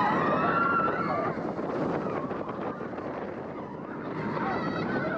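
Riding a small steel roller coaster: wind rushing over the microphone and the cars running along the track, with riders shrieking and whooping in the first second or so.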